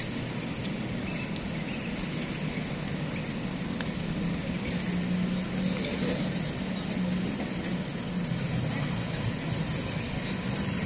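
Steady street traffic noise, with a low engine hum that swells through the middle and then fades.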